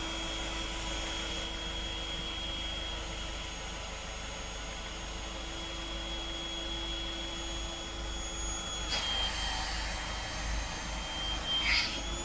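Electric air pump running steadily with a high motor whine as it inflates an inflatable boat's tube. Its pitch wavers slightly about nine seconds in, and a few short rustling noises come near the end.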